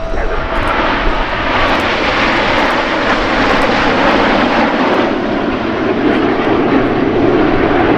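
Loud, steady airplane engine noise as an aircraft flies by, its pitch sliding lower in the second half of the pass.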